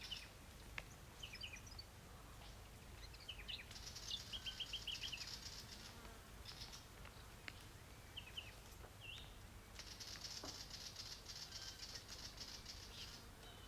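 Willy wagtail calling in short, quick chirps, with a fast run of about six notes about four seconds in. A high insect buzz comes and goes behind it, and the whole is faint.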